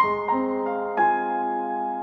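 Soft background piano music, with notes struck near the start and again about a second in and left to ring.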